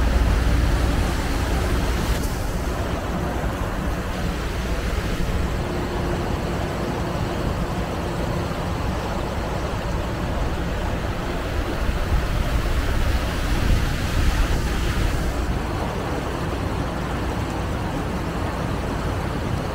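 A passenger boat under way: a steady engine rumble mixed with water rushing along the hull and in the wake, and wind on the microphone.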